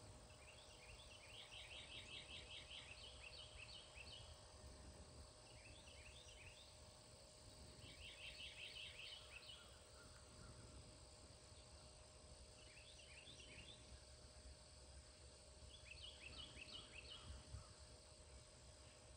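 Faint songbird chirping in about five short bouts of quick, high notes, each a second or two long, over a steady low background rumble.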